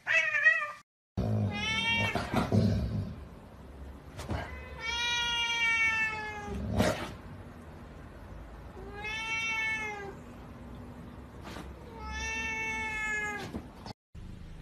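A cat meowing: four long, drawn-out meows a few seconds apart, each arching slightly and falling in pitch at the end, after a short wavering cry at the very start. A few soft clicks fall between the meows.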